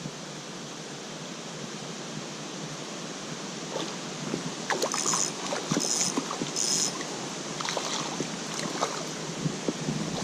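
Small creek running steadily, with short splashes and knocks from about four seconds in, three sharper splashes close together near the middle, as a hooked trout is handled in the water.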